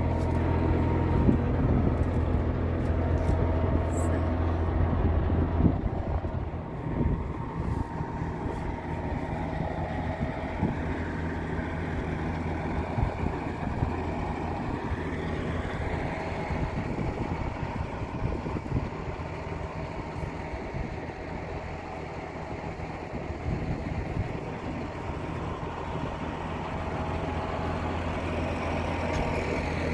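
Tractor engine running steadily, louder for the first six seconds or so, then quieter through the middle and building again near the end.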